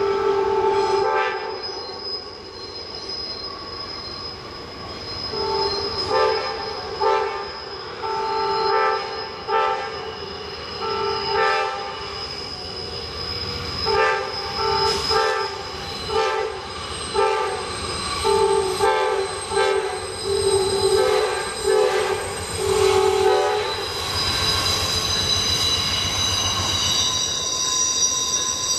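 Amtrak GE P42 diesel locomotive's air horn sounding a chord: one blast at the start, then a long run of short toots about one a second, over a steady high-pitched squeal of wheels on the tight curve. About 24 seconds in, the horn stops, leaving the wheel squeal and the locomotive's low engine rumble.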